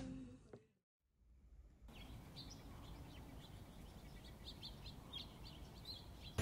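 Faint chirping of small birds, short irregular chirps over a low steady background, starting about two seconds in after a brief fade and a second of silence.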